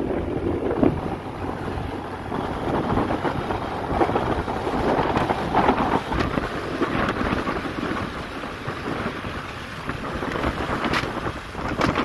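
Wind buffeting the microphone on a moving vehicle, with road and engine noise underneath. A few sharp clicks come near the end.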